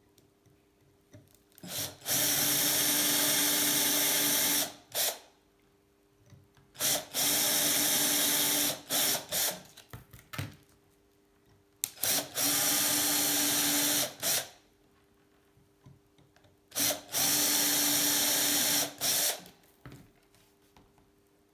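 Power drill running in four bursts of about two seconds each, with short blips of the trigger around them, drilling holes in a bicycle seat post.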